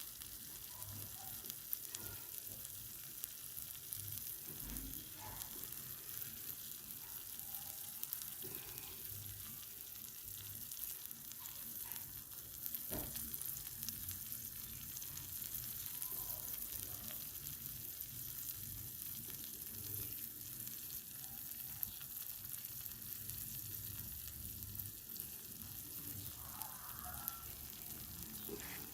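Provoleta (provolone cheese) sizzling as it cooks: a steady hiss with scattered small pops.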